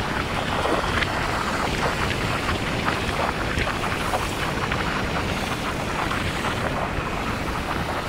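Wind buffeting the microphone on a moving motorcycle, over steady engine and road noise.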